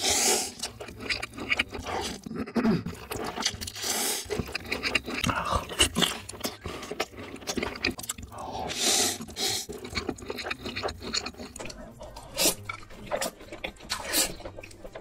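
Close-miked eating sounds: noodles slurped in several long, hissy pulls, with wet chewing and many small mouth clicks and smacks in between.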